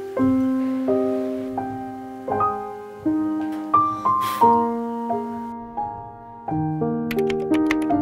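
Slow, gentle solo piano music, single notes struck and left to ring out. From about seven seconds in, a quick run of typewriter key clicks sounds over the piano.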